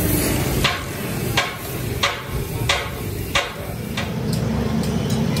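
Five sharp hammer blows on the steel screw clamp of a tire vulcanizing rig, evenly spaced about two-thirds of a second apart. This is part of loosening the clamp to take the cured tractor tire off the machine. Lighter taps follow near the end.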